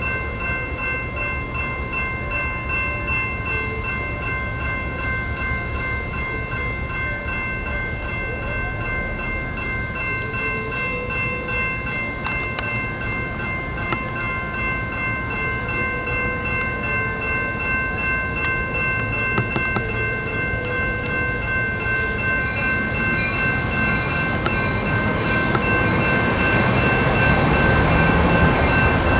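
General Signals Type 2 electronic railroad crossing bells ringing continuously, a rapid, steady electronic ding. A low rumble builds over the last few seconds.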